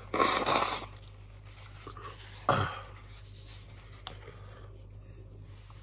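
A person blowing their nose hard into a paper tissue: one long blow, then a shorter one about two and a half seconds in. The runny nose comes from the heat of a superhot chili just eaten.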